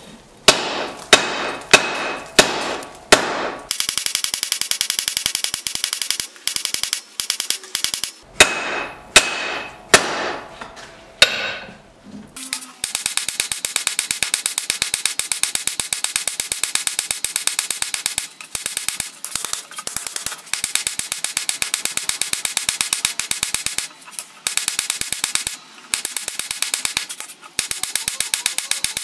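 Hand hammer forging a hot bar of O1 tool steel on an anvil. A few separate ringing blows come about two a second, then fast, even hammering with a short-handled 2 lb hammer, broken by short pauses.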